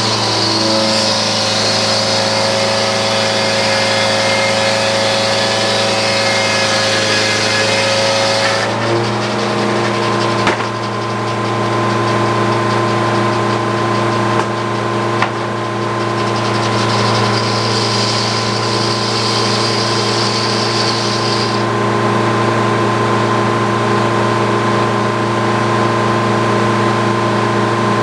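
Frick circular sawmill running under a steady engine drone, with the blade cutting through an oak log and adding a high whine and hiss: first up to about nine seconds in, then again for a few seconds past the middle. A couple of short knocks come between the cuts.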